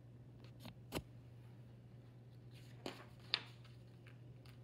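Page of a thin paperback picture book being turned and pressed flat: a soft click about a second in, then a brief paper rustle and a sharp tap a little after three seconds, over a faint steady hum.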